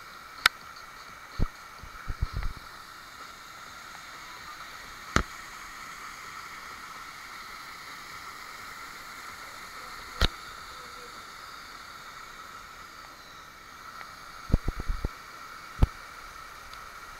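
Steady rush of a small mountain stream cascading over rocks below a waterfall. Sharp knocks and dull thumps sound close to the microphone now and then, in a cluster near the end.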